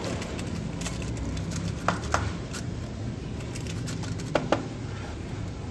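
Silicone spatula pressing and smoothing a thick, sticky besan-coconut barfi mixture in a parchment-lined metal baking pan, with two pairs of light clicks as it knocks the pan, over a steady low hum.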